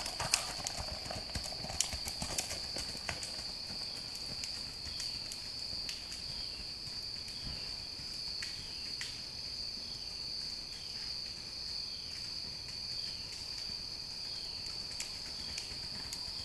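Horse's hooves beating on a dirt woodland trail in the quick four-beat racking gait, loud and close for the first few seconds, then fading as the horse moves away. Under it, a steady high-pitched drone.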